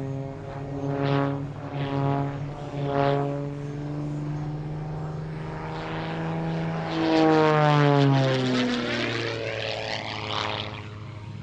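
Aerobatic propeller plane's engine and propeller droning through a routine. It swells sharply three times about a second apart in the first few seconds, then is loudest as the plane passes close about seven to eight seconds in, its pitch dropping as it goes by.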